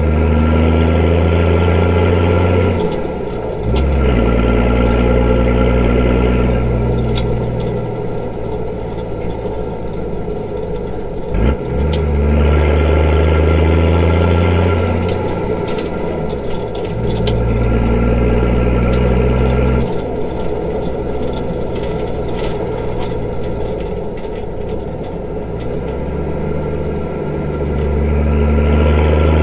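Straight-piped Nissan TD42 4.2-litre six-cylinder diesel driving on the road: loud stretches of pulling through the gears, the exhaust note breaking and dropping at each gear change, with quieter stretches of light throttle between.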